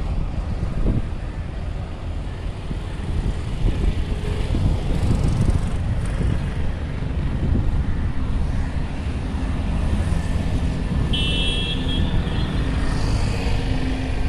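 Steady road traffic noise from passing vehicles, with a dense low rumble. About eleven seconds in, a vehicle horn gives one short, high toot.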